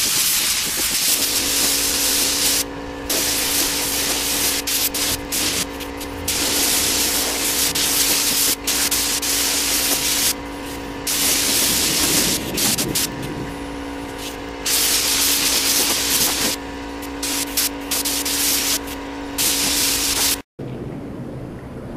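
Compressed-air spray gun hissing as it sprays clear coat, starting and stopping in repeated bursts of one to a few seconds as the trigger is pulled and released, over a steady hum.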